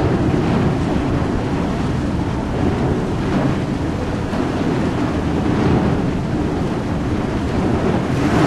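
Steady low rumble of a large ro-ro ferry's engines and churning propeller wash as the ship manoeuvres onto its berth.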